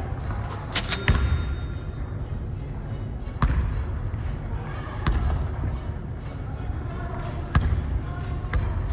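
Basketball bouncing on a hardwood gym floor: a few separate hard bounces a second or two apart, with a sharp hit that rings on briefly about a second in.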